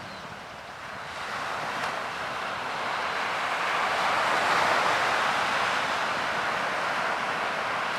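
Ocean surf: a steady rush of breaking waves that swells over the first few seconds and then stays full.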